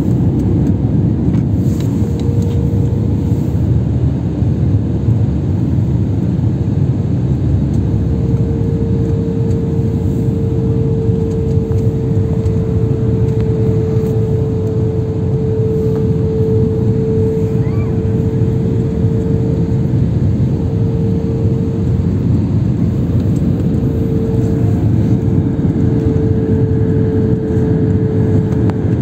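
Steady cabin noise of a jet airliner in flight: the engine drone and rush of air, with a held steady tone over it.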